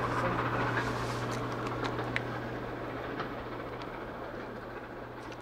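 A train running away into the distance, its rumble fading steadily, with a few faint clicks over it.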